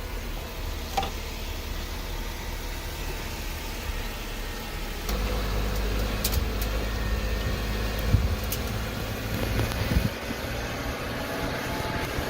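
Jeep driving down a road: steady engine and road rumble that grows louder about five seconds in, with a few sharp knocks and rattles from bumps.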